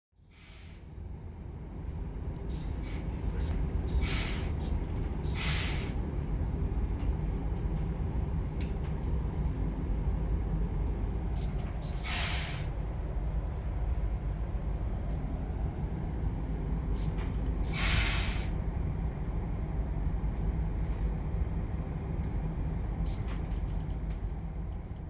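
Regional electric train running, heard from inside the carriage: a steady low rumble of wheels on track, broken by short hissing bursts, the loudest about twelve and eighteen seconds in.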